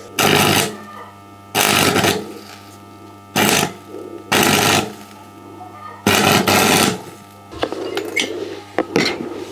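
Stick (electrode) arc welding on steel: the arc crackles in five short bursts one to two seconds apart, over a steady low hum.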